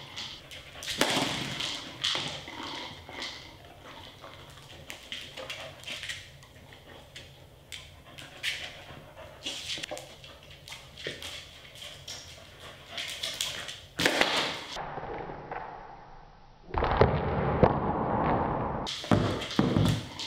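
Hard plastic Bob-A-Lot treat-dispensing wobble toy, loaded with kibble, knocking and clattering on a laminate floor as a dog noses and pushes it. The knocks come irregularly, with a louder, denser run of clattering near the end.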